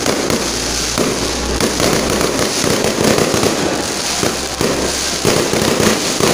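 Fireworks firing a continuous barrage at close range: dense crackling from glittering crackle stars, with sharper bangs every second or so and no pause.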